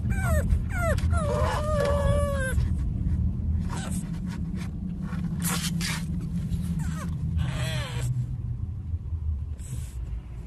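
Pug puppy whining: a quick run of high, falling whimpers in the first couple of seconds, ending in a held whine, then more falling whimpers about seven seconds in. A steady low rumble runs underneath.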